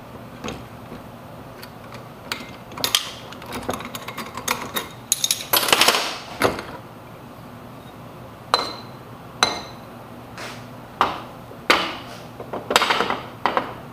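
Metal engine parts clinking and knocking as the finned cylinder head and cover plates are worked loose, lifted off and set down on a metal workbench: a quick cluster of clatter about halfway through, then single knocks a second or so apart, some ringing briefly.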